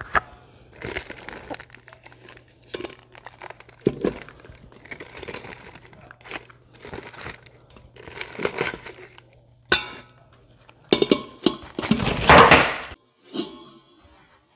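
Aluminium foil crinkling and rustling in irregular bursts as a foil sling is gripped and pulled taut to lift a glass baking dish out of a pressure cooker, loudest in a long crinkle near the end.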